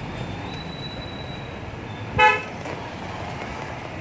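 A vehicle horn gives one short toot a little past halfway through, over steady street traffic noise.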